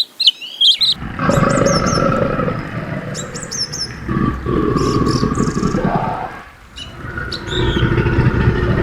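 Birds chirping, then from about a second in a large animal's long, low call, pausing briefly near the seventh second and starting again, with faint bird chirps above it.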